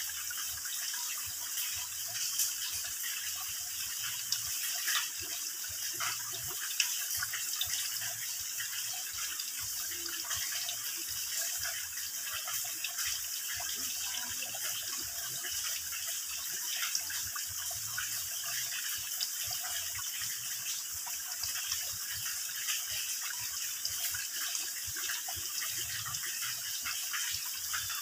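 Water dripping and trickling from a mossy rock overhang into a shallow pool: a steady splashing hiss made of many small drops, with occasional sharper plinks.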